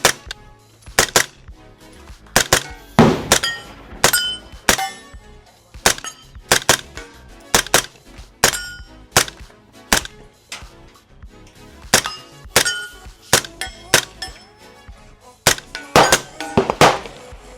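Suppressed airsoft SIG MPX replica fired in single shots at an irregular, unhurried pace, more than twenty shots in all. Several shots are followed by a short metallic ring.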